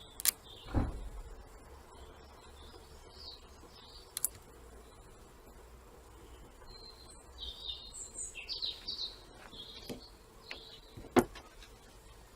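Small birds chirping on and off, with a few sharp clicks and knocks; the loudest knock comes about eleven seconds in.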